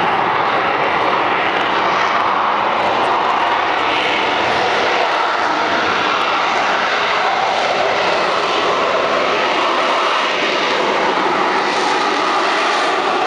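A USMC AV-8B Harrier II's Pegasus turbofan, steady and loud, as the jet flies slowly toward the listener.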